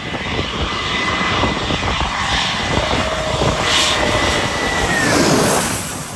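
Engines of a low-flying airplane passing close overhead: a loud rushing noise with a steady high whine. About five seconds in, the whine drops in pitch as the plane goes past.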